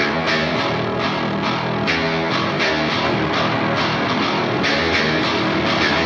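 Rock music with guitar over a steady beat.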